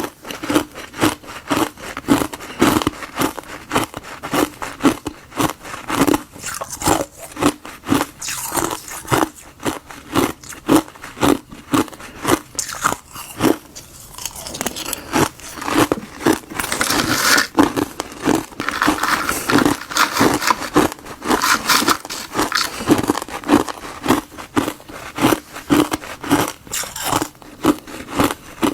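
Frozen tartary buckwheat and gardenia tea ice being bitten and chewed: a steady run of crisp, crackling crunches, with a brief lull about halfway.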